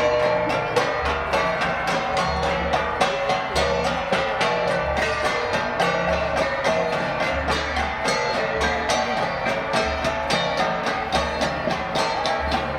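Ensemble of hand-struck flat gongs playing a fast, even beat of about four strikes a second, the gongs ringing on between strokes, with a deep drum beat repeating under them.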